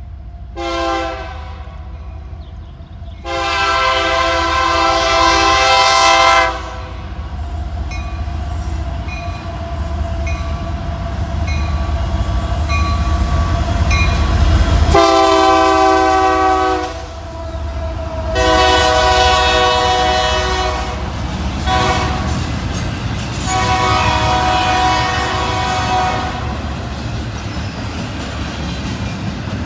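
A freight locomotive's multi-chime air horn sounds a grade-crossing sequence of long blasts with a couple of short ones. Beneath it, the heavy rumble of the passing diesel locomotives gives way to the clatter of double-stack intermodal cars rolling by.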